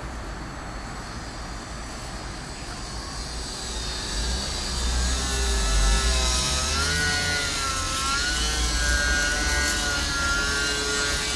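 Electric motor and propeller of an E-flite Sbach 342 radio-controlled aerobatic plane whining in flight. It grows louder about four seconds in as the plane comes close, its pitch wavering up and down, with a low rumble underneath.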